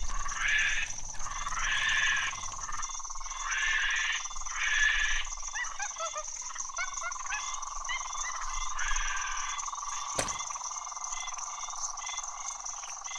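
Night-time chorus of frogs calling in repeated bursts over a steady high-pitched hum, with a few small falling chirps in the middle and one sharp click about ten seconds in.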